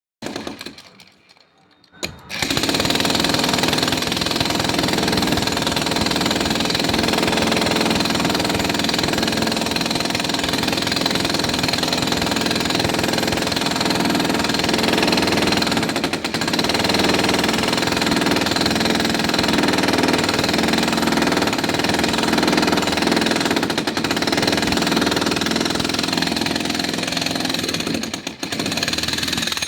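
Concrete breaker hammering rapidly and continuously into concrete. It starts about two seconds in, breaks off briefly a few times, and stops near the end.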